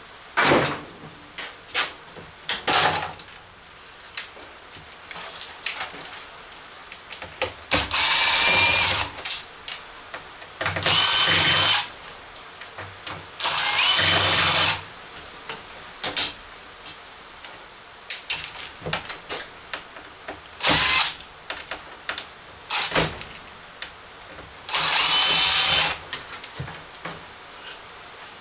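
Craftsman cordless drill/driver backing screws out of a monitor's metal chassis in four short runs of about a second each, its motor whining steadily. Between runs come sharp clicks and clatter of screws and parts being handled.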